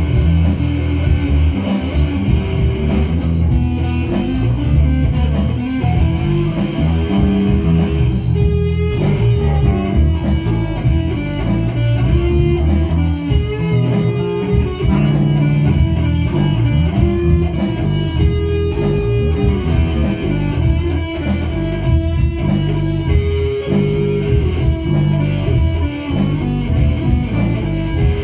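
Electric guitar and bass guitar playing together in a loud, continuous instrumental jam, with heavy low notes under the guitar line.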